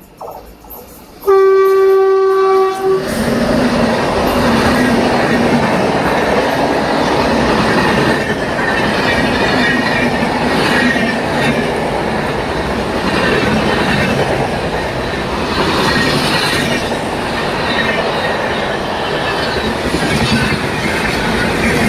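An electric locomotive's horn sounds one long steady blast about a second in. Then the loco-hauled passenger train runs through at speed: loud continuous wheel-and-rail rushing with repeated clacks of coach wheels over the rail joints.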